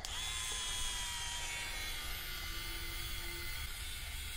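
Hurricane Spin Duster's small battery-powered motor running steadily as the brush head spins, a soft even hiss with faint steady high tones.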